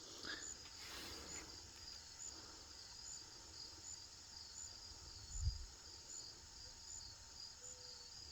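Faint steady chorus of insects, crickets by its sound, chirping in a regular rhythm a little under a second apart. A soft low thump comes about five and a half seconds in.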